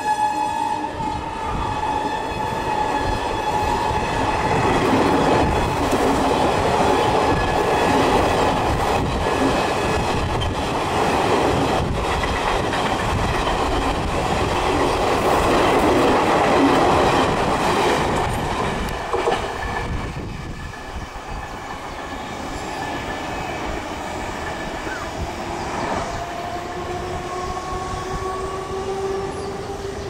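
Duronto Express coaches rushing past at speed behind a WAP5 electric locomotive: a steady rush of wheels on rail with clickety-clack over the rail joints, while the locomotive's horn tails off in the first couple of seconds. The rush dies down about twenty seconds in, and near the end a rising tone comes in.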